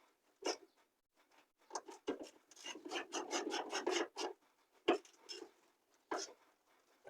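Ratchet wrench working on door hinge bolts: scattered single clicks, then a quick run of rapid clicking strokes about halfway through.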